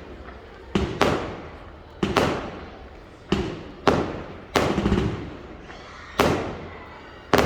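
Fireworks going off: a quick, irregular series of about nine sharp bangs, each echoing away over about half a second before the next.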